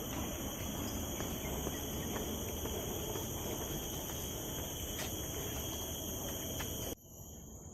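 Steady high-pitched chorus of insects, crickets or cicadas, running over an even background hiss. The hiss drops away abruptly near the end while the insect chorus continues.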